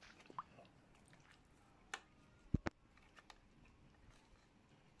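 A spoon stirring raw chicken pieces in tomato sauce in a metal pot: soft wet squishing with scattered clicks and knocks of the spoon, the loudest two close together about two and a half seconds in.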